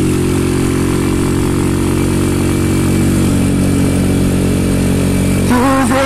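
Motorcycle engine running steadily while riding at speed, with wind and road noise over it; the engine note drops slightly about three seconds in.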